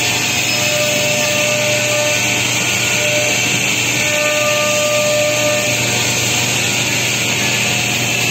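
Woodmaster four-spindle CNC wood machining centre running, its router spindles cutting the clamped wooden parts. The noise is steady and even, with a constant whine through it.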